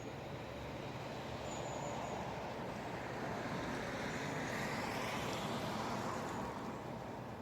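A road vehicle passing by: a steady rushing noise that swells to a peak a few seconds in and then eases off.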